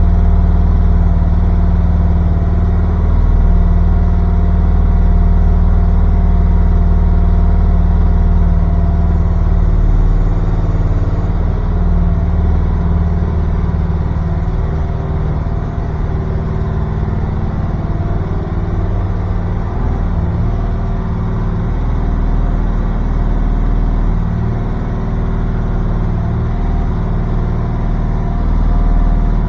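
Mini excavator's engine running steadily, its low note shifting a little about ten seconds in.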